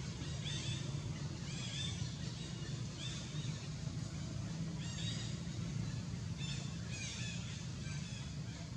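A series of short, high, arching animal calls, about one a second, over a steady low hum.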